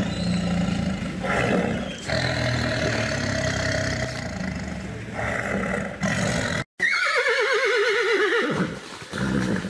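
A tiger growling, a rough low sound that stops abruptly after about six and a half seconds. Then a horse whinnies, one long neigh that falls in pitch with a quaver.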